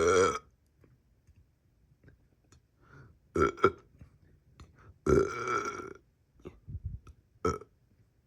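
A person burping over and over: one burp ends just as the sound begins, then a short double burp about three and a half seconds in, a longer burp about five seconds in, and a short one near the end.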